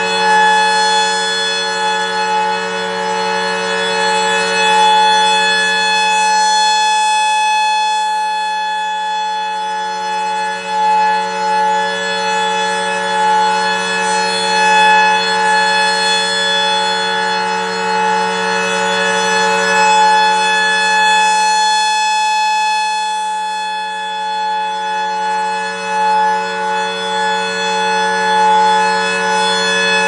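Rotating two-horn outdoor warning siren sounding a steady, unchanging chord. Its loudness slowly swells and fades as the horns turn toward and away.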